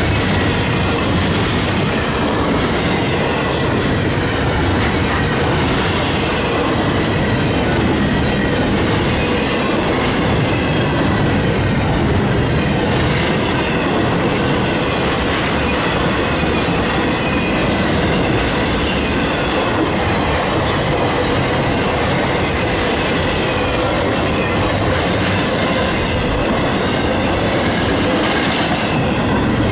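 BNSF double-stack intermodal freight train passing at close range: a steady, loud rumble and rattle of steel wheels on the rails, with clicks recurring every second or two as the wheelsets pass and a faint steady wheel squeal underneath.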